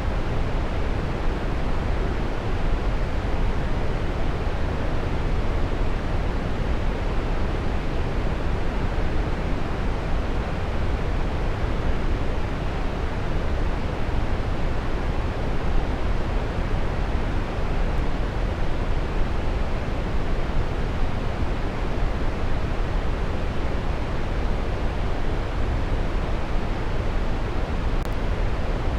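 Waterfall: falling water pouring steadily, an even, unbroken rushing that is heaviest in the low end.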